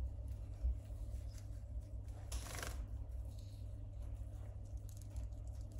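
Soft rustling and small clicks of a caique preening its feathers, with one louder rustle about halfway through.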